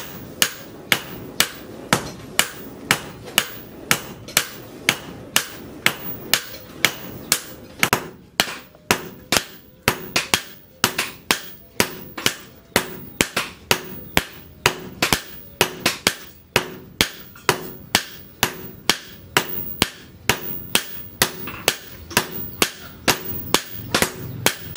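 Hammers striking a red-hot leaf-spring steel blade on a steel post anvil during hand forging: a steady rhythm of sharp metallic blows, about two a second, each with a short ring.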